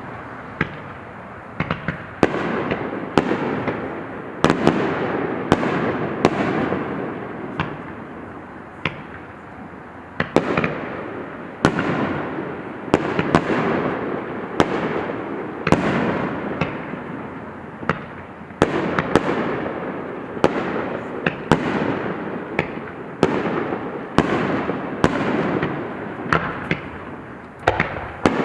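Aerial fireworks going off in a steady barrage: sharp bangs every second or so, each followed by a rolling echo, with quick runs of crackling between them.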